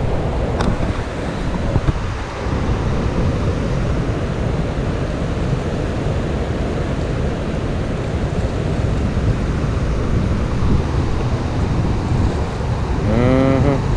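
Steady rush of water pouring through a dam's open spillway gates and churning in the tailwater, with wind buffeting the microphone. Near the end comes a short pitched sound that bends up and down.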